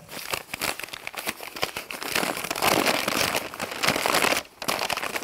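Brown kraft packing paper crinkling and rustling as it is pulled open and crumpled, with a brief pause about four and a half seconds in.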